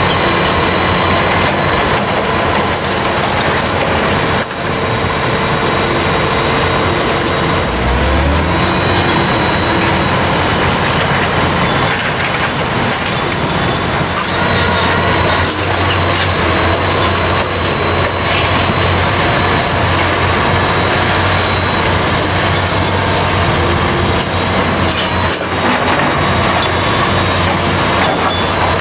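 Liebherr R 960 crawler excavator working: its diesel engine runs steadily under load with a hydraulic whine that rises briefly in pitch, while it handles a large concrete block. A few short knocks of rubble come through.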